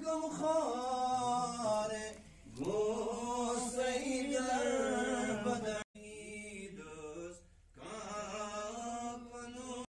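A man's voice chanting a devotional recitation in long, drawn-out melodic phrases. The phrases break off abruptly about six seconds in and again near the end.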